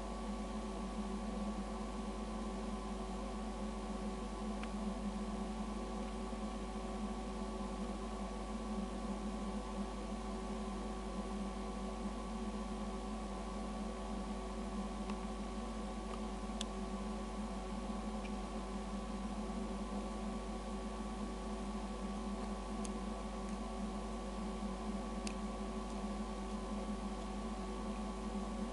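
A steady hum: a low drone with several fixed tones over a faint hiss, unchanging throughout, with a few faint ticks.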